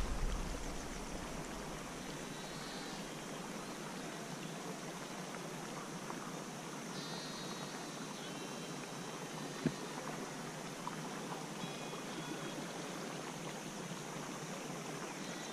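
Steady rushing of a mountain stream over rocks, with a few faint high chirps scattered through it and a single brief tap about ten seconds in.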